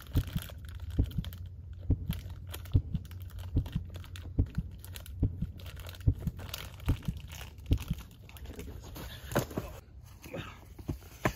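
Plastic snack-bar wrapper crinkling and tearing as it is opened, with short dull thuds about two or three times a second.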